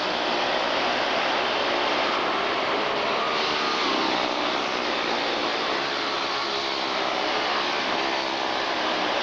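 Quarter midget race cars' small single-cylinder engines buzzing as they race around a dirt oval, several at once, their pitches rising and falling as the drivers get on and off the throttle through the turns.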